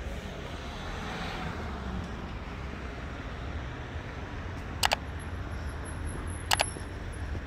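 City street traffic noise, with a vehicle passing about a second in. Two sharp double clicks in the second half.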